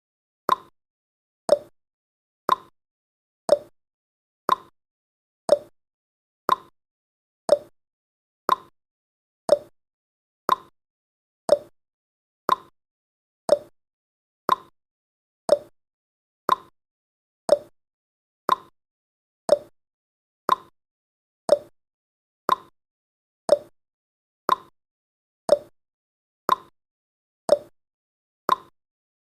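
Countdown timer's ticking sound effect: a short, sharp tick once every second, alternating between a higher and a lower tick like a clock's tick-tock.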